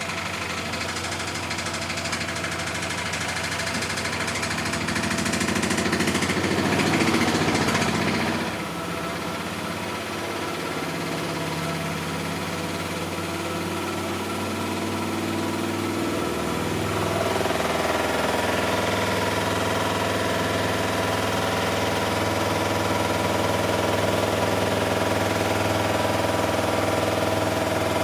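Miele Softtronic W6544 washing machine running with its drum turning. The sound builds, falls away about eight seconds in, and from about seventeen seconds settles into a steady higher hum. The drum runs loose and noisy, the sign of a broken drum spider.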